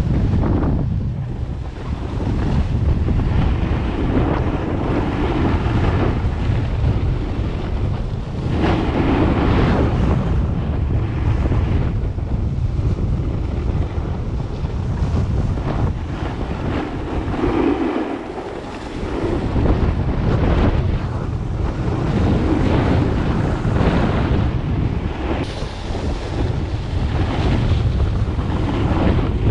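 Heavy wind buffeting an action camera's microphone during a downhill run on snow at speed, with the rushing hiss of snow sliding under the edges swelling at turns. The low rumble drops out briefly about eighteen seconds in.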